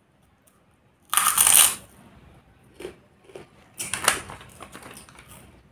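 Crunching of ring-shaped puffed snacks being bitten and chewed: a loud crunch about a second in, then a second cluster of sharper crunches near the middle, with small crunching clicks between.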